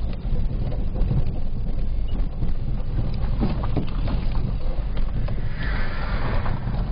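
Car interior noise while driving slowly on a dirt road: a steady low rumble of engine and tyres. A brief rushing hiss swells and fades a little after five seconds.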